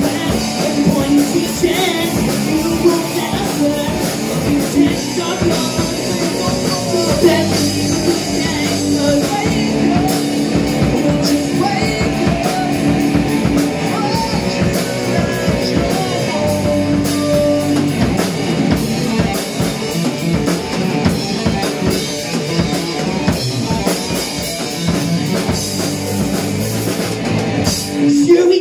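Live rock band playing loudly: electric guitars over a drum kit, with a steady driving beat.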